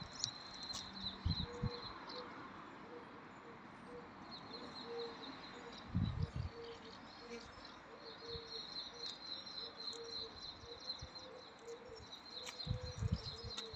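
Faint garden ambience: birds chirping over a high insect trill, with a low steady insect buzz for most of it. A few soft low bumps come about six seconds in and again near the end.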